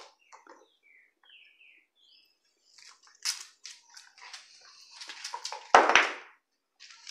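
Dog picking up and gnawing a beef bone on a concrete floor: a run of sharp clicks and scrapes, loudest in a short crunching burst about six seconds in.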